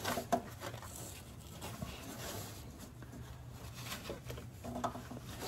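Faint rubbing and small clicks of a gloved hand twisting a new oil filter tight on a 2UZ-FE V8, with a couple of short effort grunts from the man near the start and again near the end.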